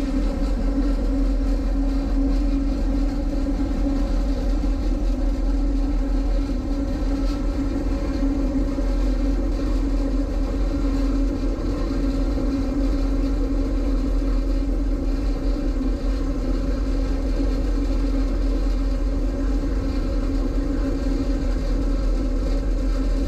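Diesel locomotive running steadily under way: a constant engine drone with a strong held tone over a low rolling rumble, unchanging throughout.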